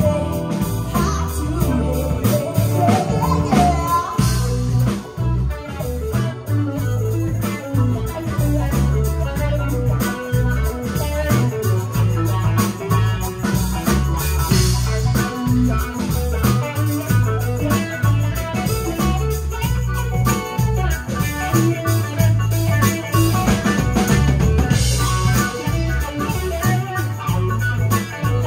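Live band playing a song: electric guitar, electric bass, keyboard and drum kit keeping a steady beat.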